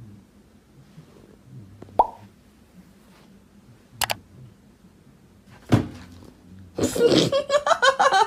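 Three sharp clicks about two seconds apart over a quiet room background, then a person breaking into giggling laughter about a second before the end.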